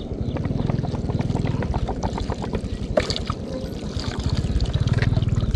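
A small engine running with a fast, even beat, getting louder about four seconds in.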